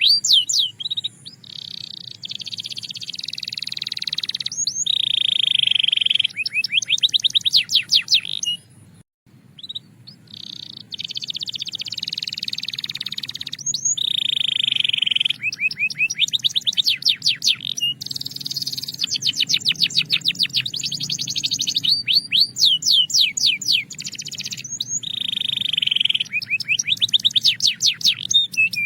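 Belgian canary singing: long, steady rolled tones alternate with rapid trills of repeated sweeping notes, with a short break about nine seconds in.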